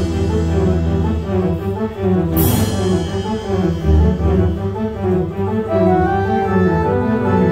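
Kimball theatre pipe organ playing a moving melody over sustained bass notes, in string-like stops. About two and a half seconds in, a single crash comes from the organ's percussion section.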